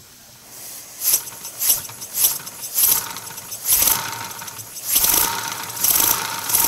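Compressed-air-powered 3D-printed Wankel engine starting up: a hiss of air building, then a string of sharp exhaust puffs, roughly one to two a second, as the rotor spins up. A thin whine joins about halfway through.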